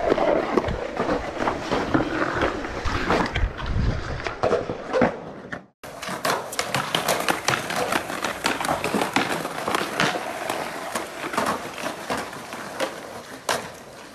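Skateboards on concrete: wheels rolling and trucks grinding along a concrete curb, with repeated sharp clacks and knocks of the boards. The sound breaks off for a moment about six seconds in, then the same rolling and clacking goes on.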